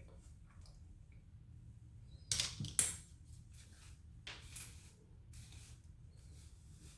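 Scissors snipping through hair: two sharp cuts close together about two and a half seconds in, then a softer snip, over a faint room hum.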